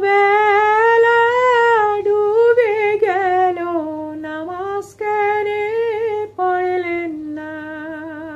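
A woman singing a Bengali Islamic ghazal unaccompanied, drawing out long held notes with wavering ornamented turns. The line breaks twice for a quick breath, about five and six and a half seconds in.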